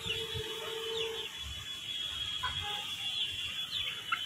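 Hens in a coop clucking softly, with a few short high chirps.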